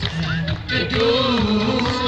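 Robed church choir singing a hymn, the melody sliding and wavering in pitch.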